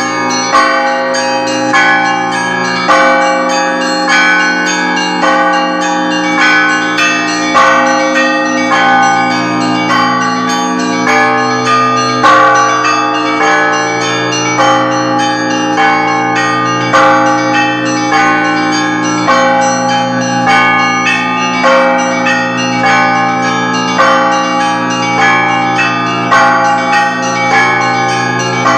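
Russian Orthodox church bells rung as a festive peal: several bells of different sizes struck by hand in a repeating pattern. The higher bells are struck often over the lasting ring of the deeper bells, with about one loud accent a second.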